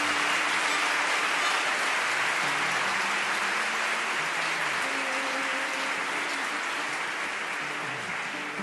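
Audience applauding, a dense steady clapping that slowly dies down toward the end, with faint voices underneath.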